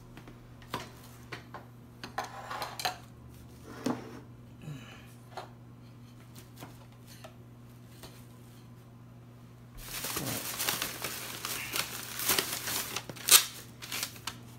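Scattered light knocks of things being moved and set down on a table, then from about ten seconds in a thin plastic carryout bag rustling loudly as it is handled and pulled open by its handles.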